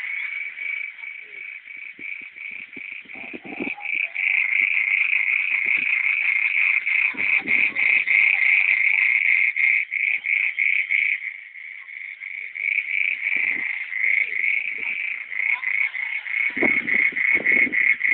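Chorus of frogs calling, many rapid pulsing calls overlapping without a break, with a few dull low thuds in between.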